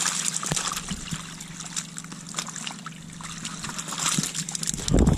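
Water trickling and sloshing out of a tipped plastic bucket as a load of perch and bluegills spills onto the ice, with many small wet slaps and clicks. A loud, low thump comes near the end.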